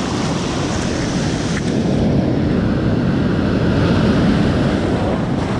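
Surf washing up a sandy beach: a wave's wash rushes in, swelling louder in the middle of the stretch, with wind on the microphone.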